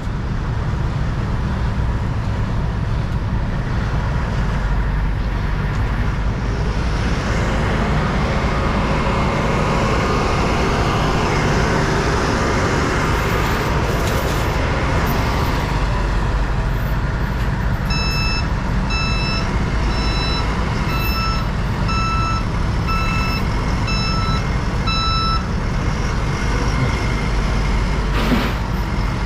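Heavy-equipment diesel engine running steadily. About two-thirds of the way in, a back-up alarm sounds a steady run of beeps, about one and a half a second, for several seconds, then stops.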